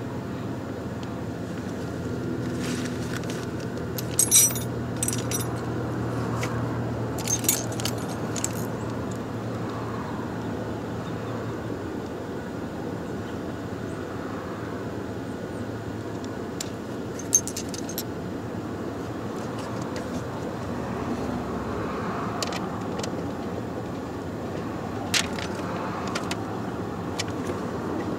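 Scattered light metallic clinks and jingles from hand work with small metal parts, several close together in the first third and a few single ones later, over a steady low hum.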